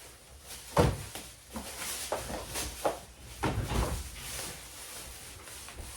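Groceries being handled and put away: a string of knocks and bumps from packages and containers being set down and moved, the loudest about a second in, then quieter handling.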